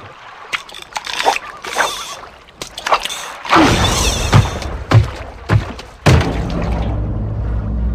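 Cartoon sound effects: a fly-fishing line whipping through the air in quick swishes, then a run of heavy thuds with downward-sliding tones, settling into a low steady drone about six seconds in.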